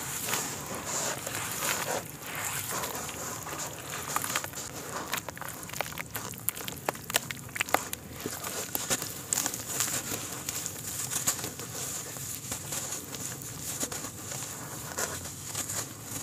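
Hands squeezing and crumbling wet, gritty mud in a plastic basin of muddy water: wet squelching, with clumps dropping and splashing back into the water. There are many irregular sharp crackles, loudest about midway.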